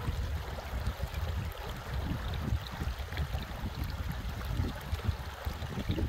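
Shallow river running over a stony, gravelly bed: a steady rush of water with a low rumble underneath.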